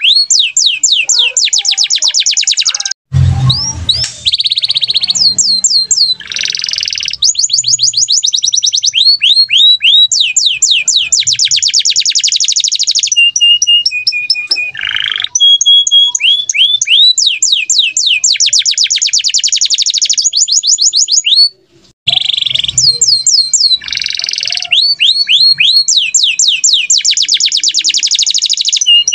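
Domestic canary singing nonstop in loud, fast trills: runs of rapidly repeated high sweeping notes, changing from one tour to the next. The song breaks off briefly twice.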